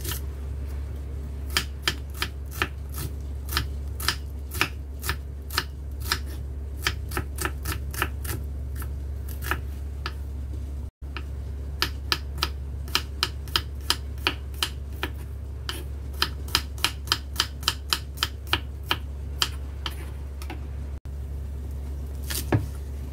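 Kitchen knife slicing garlic cloves and shallots on a wooden chopping board, then spring onion near the end: a string of sharp taps of the blade on the wood, about two or three a second, over a steady low hum.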